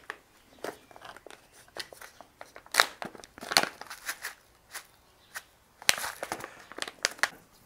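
Hand-twisted salt and pepper grinder mills grinding seasoning over a bowl of sauce: irregular crunchy clicking, louder about three seconds in and again around six seconds.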